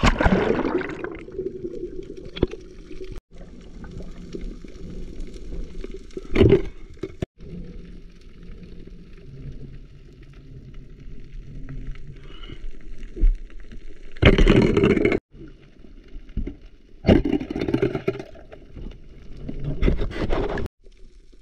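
Muffled underwater sound picked up by a camera going into the sea: a splash-like plunge at the start, then a steady dull water rush with several louder, second-long rushes of water partway through and near the end.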